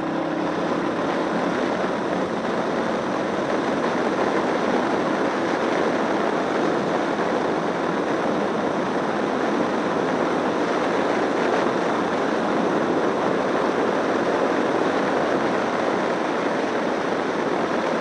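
Steady rush of wind and road noise from riding a Suzuki cruiser motorcycle at speed, the engine buried under it. The noise builds a little over the first few seconds as the bike picks up pace.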